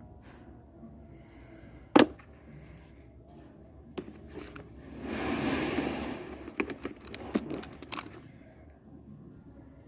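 Handling noises from unboxing a keypad phone's battery: a sharp click about two seconds in, another near four seconds, a rustle lasting about a second and a half, then a quick run of small clicks.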